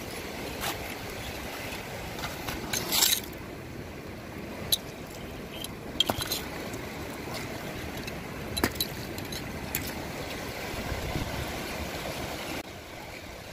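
Scattered sharp clicks and clinks of small sea-snail shells (sihi) knocking together as they are dug out and gathered, over a steady wash of water. The loudest clink comes about three seconds in.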